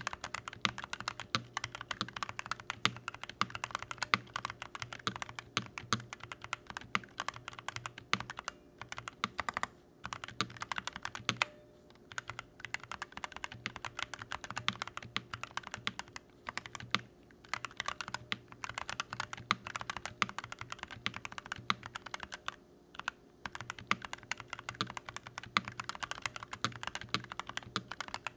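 Continuous typing on a Keychron V1 mechanical keyboard fitted with stock Holy Panda X tactile switches: pre-lubricated, with polycarbonate top housings, nylon bottom housings and POM stems. The key presses come in fast runs of clacks with a few brief pauses between them.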